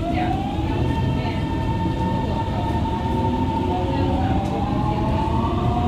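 GTO-VVVF traction inverter and motors of a Siemens-Adtranz Type A1 metro train whining as the train accelerates out of a station: a tone rises in pitch in the first second and then holds steady, and a second tone starts climbing near the end, over the low rumble of the running gear.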